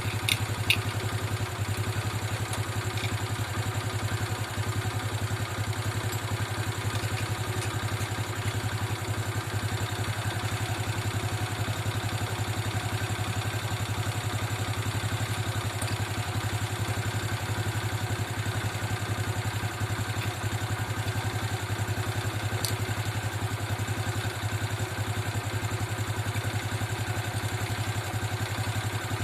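Motorcycle engine idling steadily, with a few light clicks near the start.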